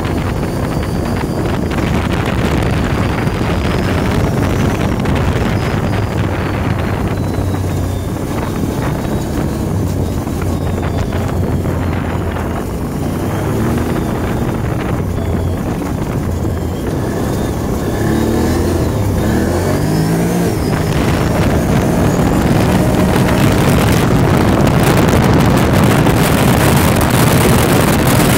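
Engine of a Can-Am off-road vehicle running steadily while it is ridden across a grassy trail. The engine note climbs briefly about two-thirds of the way in, and the sound grows louder toward the end.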